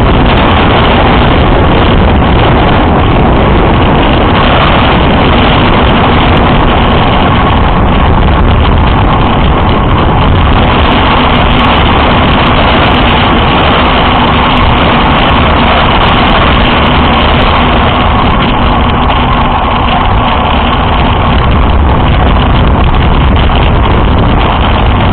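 Loud, steady wind rush from a road bike descending fast, the air buffeting the microphone.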